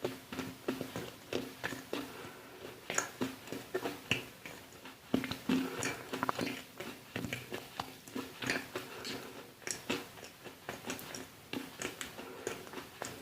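Close-miked crunchy chewing: a dog biting and crunching hard treats, a quick irregular run of sharp crunches several times a second.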